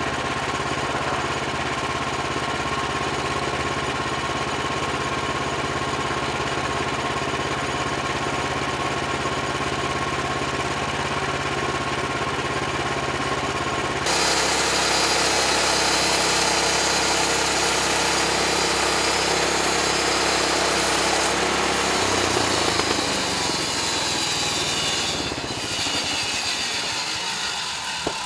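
Portable sawmill's engine running steadily. About halfway through it turns suddenly louder and harsher. Its low note then steps down in pitch, and the sound fades away at the very end.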